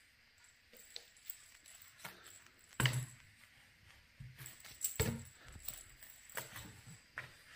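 Cardboard box knocked and rustled from inside as a cat moves and paws at a string toy: a few dull thumps, the loudest about three seconds in and another about five seconds in, with scratchy rustling between.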